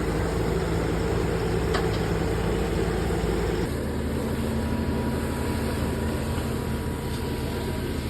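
An engine running steadily with a low hum, its note changing abruptly about three and a half seconds in.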